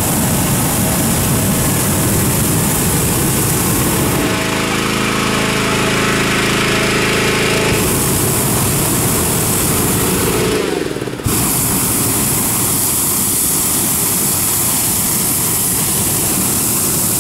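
Hot-air balloon's propane burner firing into the envelope during hot inflation, in long blasts: one of about four seconds, a pause of several seconds, then another, a short break, and a long final blast. Under it the inflator fan's engine keeps up a steady low drone.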